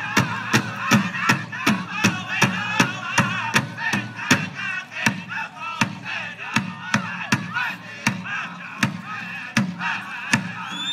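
Powwow drum group: a large drum struck in a steady beat, about three beats a second, under high-pitched group singing.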